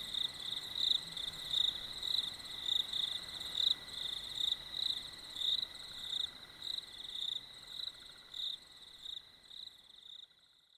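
Crickets chirping in a steady rhythm, about one and a half chirps a second, fading out toward the end.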